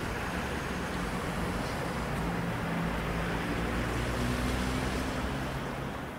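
City street traffic: cars passing, a steady rumble of engines and tyres that swells a little a few seconds in and eases near the end.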